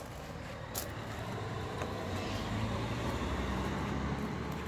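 A motor vehicle engine running, growing louder from about a second in and easing off near the end.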